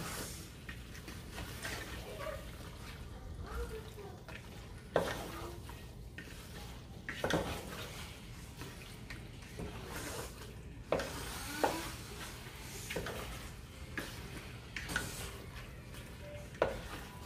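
A spoon or spatula stirring chicken wings in a pan of tomato masala, with irregular scrapes and sharp knocks against the pan over a faint steady sizzle.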